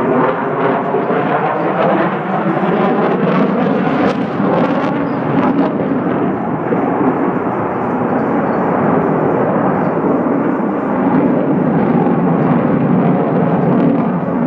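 Sukhoi fighter jet's engines in flight, loud and steady. The sound crackles for about the first six seconds, then settles into a smoother, deeper rush.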